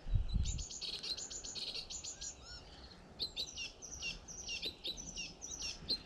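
Small songbirds calling and twittering, many short chirps in quick succession, with a brief low rumble of wind on the microphone at the start.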